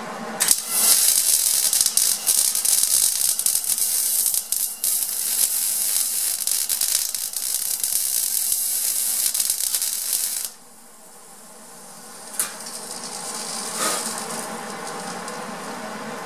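Electric arc welder crackling and sizzling steadily for about ten seconds as a plug weld is laid into the steel of an exhaust hanger, then cutting off suddenly. A sharp tick sounds a couple of seconds after the arc stops.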